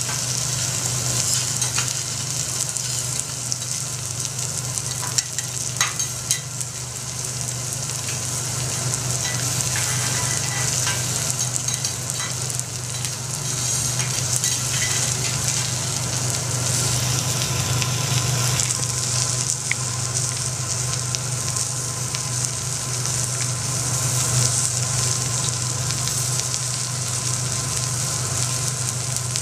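Lobster pieces sizzling on a teppanyaki steel griddle, a steady frying sizzle with a low hum underneath. A few sharp clicks come about five to six seconds in.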